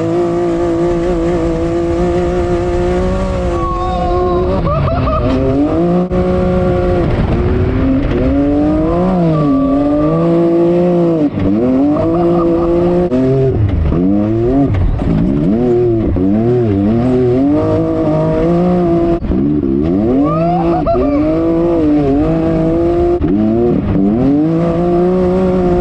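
Side-by-side UTV engine heard from inside the open cab, revving up and down repeatedly as it is driven hard over sand dunes.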